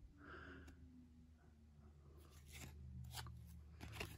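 Faint rustling and a few light clicks of baseball trading cards being shuffled and flipped in the hands.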